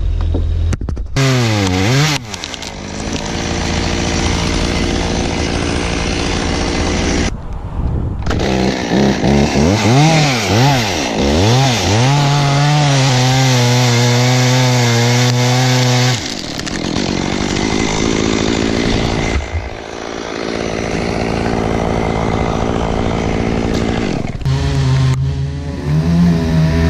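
Chainsaw engine revving up and down, its pitch swinging repeatedly, then held steady at full throttle for a few seconds as it cuts wood. The sound breaks off and restarts several times.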